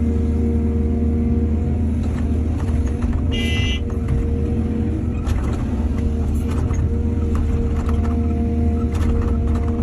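Excavator's diesel engine running steadily with a low hum, with a brief high-pitched squeal about three and a half seconds in and a few light knocks.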